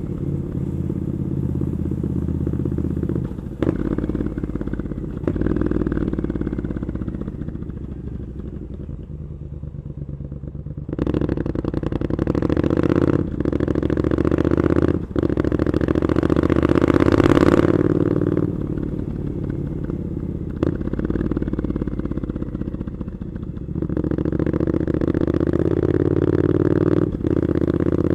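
Triumph Scrambler 900's parallel-twin engine through Arrow exhaust pipes, heard from the rider's seat while riding in traffic. The engine note rises and falls with short breaks at several gear changes, eases off for a few seconds, then climbs in a long pull that is loudest about two-thirds of the way through.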